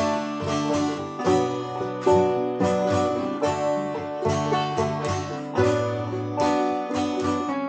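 Instrumental music with no singing: plucked string instruments picking a quick run of sharply struck notes over a bass line.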